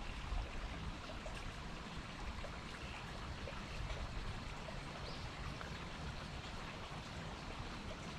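A small woodland stream running over rocks: a steady, even rush of water.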